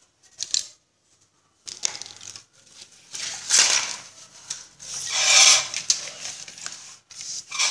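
Handling noises as a computer power supply's circuit board and wiring are pulled out of its metal case: irregular rustling and scraping in a few noisy bursts, the loudest about three and a half and five and a half seconds in.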